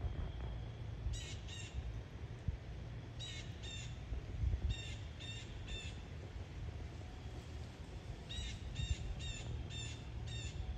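A bird calling from the trees in short, harsh, repeated calls, coming in bursts of two, two, three and then five. A steady low rumble runs underneath.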